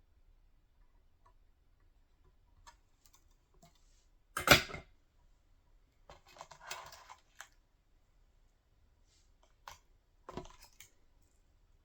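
Handling noise from bench work: scattered clicks, a sharp knock about halfway through, a short stretch of rustling and rattling, then another knock near the end, as tools and parts are picked up and set down.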